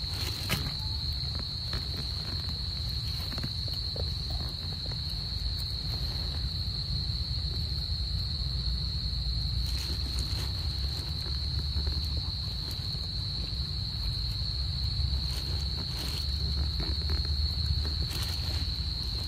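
Insects keep up one steady, high-pitched drone, unbroken throughout, over a low rumble. A few short sharp clicks come through, around 10, 16 and 18 seconds in.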